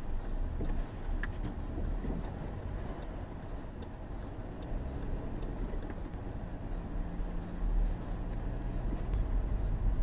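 Car pulling away from a stop and speeding up on a snow-covered road, heard inside the cabin: a low engine and tyre rumble that grows slightly louder.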